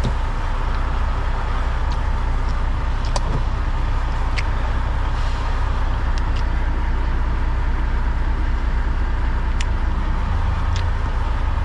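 A vehicle engine idling steadily, with a few light clicks and knocks scattered through.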